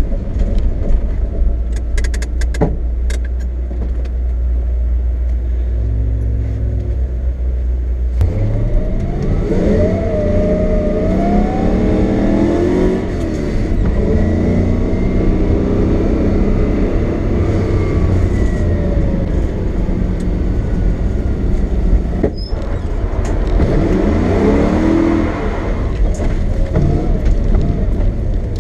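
Lexus SC400's V8 engine running at low revs for about eight seconds, then revving up and falling back, with a second rise in revs near the end, as the car is driven through a drift run.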